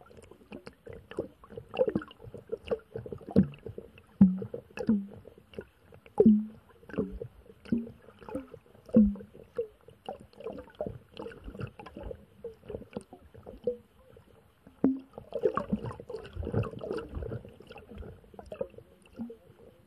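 Underwater sound picked up by an action camera in its waterproof housing: irregular clicks and knocks with short, low gurgling blips, growing busier about three-quarters of the way through.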